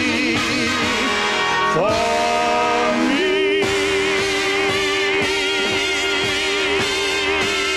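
A man and a woman singing the closing phrase of a show tune in duet over orchestra. The voices glide up about two seconds in and then hold one long final note with vibrato.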